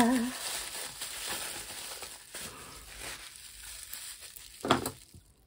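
Plastic bubble wrap crinkling and rustling as it is pulled open by hand, fading toward the end, with one brief louder sound near the end.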